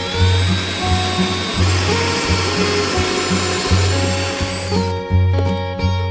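A power tool running for about five seconds, spinning up at the start and winding down near the end, over background music with a steady bass beat.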